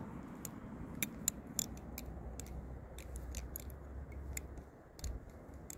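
Butterfly knife (balisong) flipped through repeated rollovers, its handles giving sharp, light metallic clicks, a few a second at an uneven pace.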